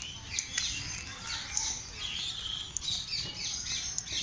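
Many small birds chirping at once, short high chirps and quick falling notes overlapping throughout, over a low rumble.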